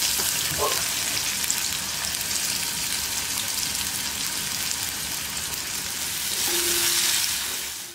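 Thinly sliced onions sizzling steadily as they fry in hot ghee in a kadai. The sizzle grows a little louder near the end and then cuts off suddenly.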